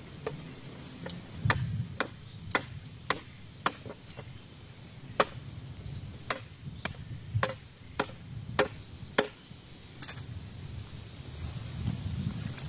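A blade chopping into wood in a run of sharp strikes, about two a second, that stop after some eight seconds. A short high chirp repeats faintly in the background.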